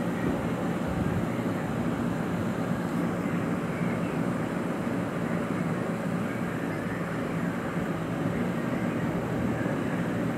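Tempering liquid with green chillies, curry leaves and mustard seeds boiling in a pan on the stove: a steady bubbling rush.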